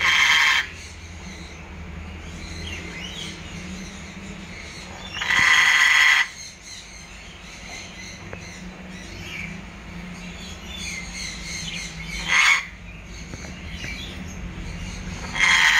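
African grey parrot giving four loud, harsh squawks, the longest lasting about a second, with faint chirps between them.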